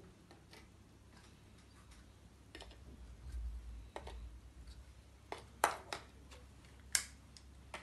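Small thin plastic cups being set down on a table: a few scattered light clicks and taps, the two sharpest near the end.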